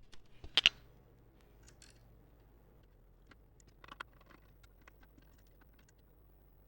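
A few light clicks and taps from handling the parts of an opened laptop: two sharp clicks about half a second in and a small cluster of faint taps about four seconds in, otherwise very quiet.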